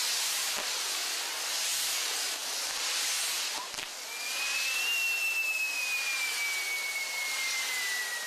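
Spinning fire wheels on a castillo fireworks tower, their spark jets giving a steady, loud hiss. About four seconds in, a long whistling tone joins, rising briefly and then slowly falling in pitch.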